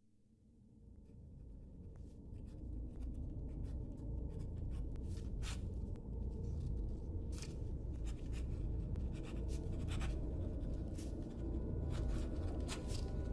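Dark, low rumbling drone fading in over the first two seconds, with irregular scratching clicks of a pen nib on paper scattered above it.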